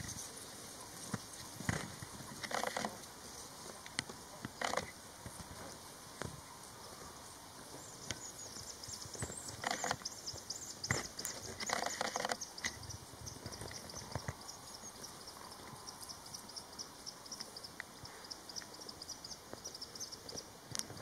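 Common buzzards scuffling in dry grass: a handful of short rustling, flapping bursts of wings and feathers. From about a third of the way in, insects chirr rapidly and high in the background.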